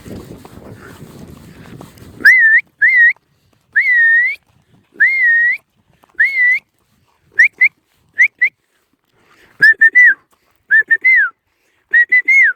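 A stockman's whistled commands to working cattle dogs: a series of short, shrill whistle notes that swoop up and down, some single and some in quick pairs and triplets. It follows a couple of seconds of low, rumbling noise.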